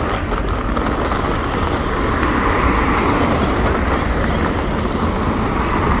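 Wheels of a hard-shell carry-on suitcase rolling over coarse asphalt as it is pulled along: a steady, unbroken rolling noise.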